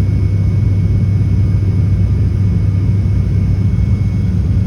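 ATR-42 turboprop's engines and propellers droning steadily, heard inside the passenger cabin: a loud, even low hum with a faint steady whine above it.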